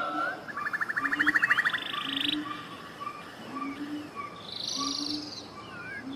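Tropical forest soundscape: a chorus of animal calls, with rapid rattling trills, short whistled chirps, and a short low note repeating about once a second.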